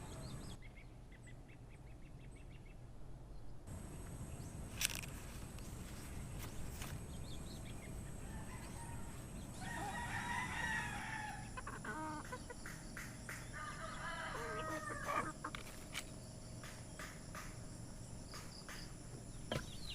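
Chickens: a rooster crows about halfway through, with hens clucking around it. A sharp tap about five seconds in and scattered light clicks.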